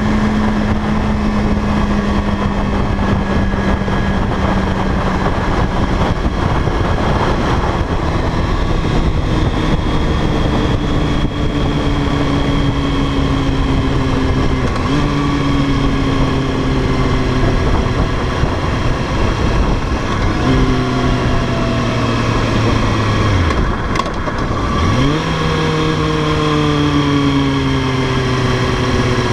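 Motorcycle engine running at road speed under a heavy rush of wind on the camera microphone. The engine note holds, then slowly sinks, changes pitch in steps several times, and rises quickly about 25 seconds in.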